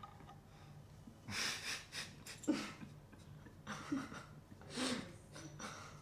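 A person breathing out hard in about four short puffs, with a few faint strained grunts mixed in.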